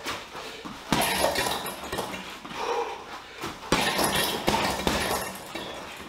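Boxing-gloved punches landing on a hanging heavy bag in quick combinations: sharp slapping hits, the two hardest about a second in and just past the middle, with lighter strikes between.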